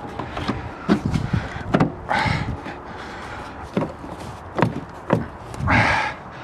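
Taillight assembly being slid and pressed back into place on the van: several sharp knocks and clicks, with a couple of brief rubbing sounds between them.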